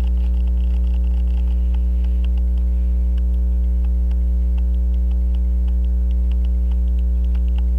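Loud, steady electrical mains hum, with faint scattered small clicks of a tool touching metal watch parts.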